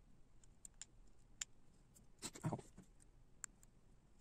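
Faint scattered clicks and taps of a small screwdriver and fingerboard truck parts being handled on a desk, with one brief louder sound that falls in pitch about two and a half seconds in.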